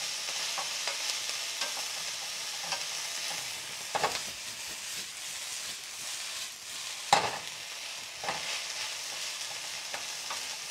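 Fried rice sizzling in a hot stainless-steel frying pan while a wooden spatula stirs and scrapes it. There are two louder knocks, about four and seven seconds in.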